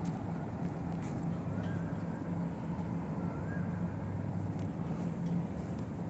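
Steady low urban background hum, with a couple of faint short whistles about two and three and a half seconds in.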